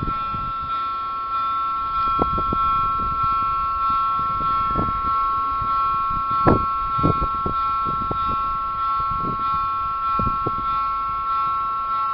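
Electronic level-crossing warning bell sounding continuously as a steady high tone while the barriers are down, the signal that a train is approaching. Low thumps and rumbles come and go underneath, the loudest a sharp knock about six and a half seconds in.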